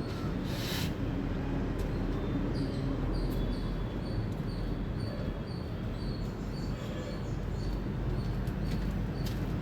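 Indian palm squirrel chirping: a long run of short, high chirps, about two to three a second, over a steady low background rumble.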